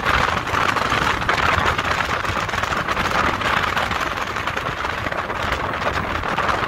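Steady rushing wind and road noise from a moving vehicle following behind, with the rumble of a Harley-Davidson Road Glide's V-twin engine cruising underneath.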